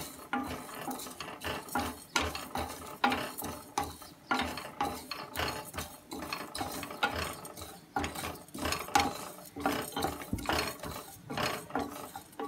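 Wooden spatula scraping and stirring whole coriander, cumin and fennel seeds around a small dry pan, the seeds rattling and scratching over the metal in strokes about once a second. The spices are being dry-roasted without oil.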